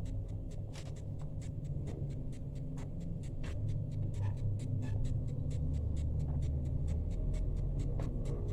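Kitchen knife slicing through a half-baked fekkas log on a board, a quick run of short crisp cuts about three or four a second.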